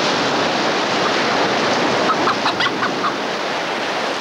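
A chicken clucking in a quick short run about two seconds in, over a steady rush of noise.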